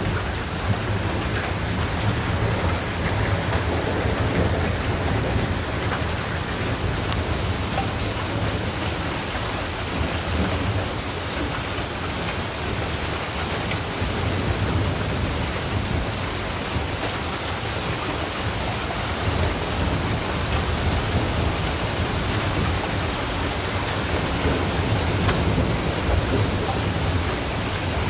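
Steady rain falling, with a low, continuous rumble of thunder rolling underneath and scattered drop ticks.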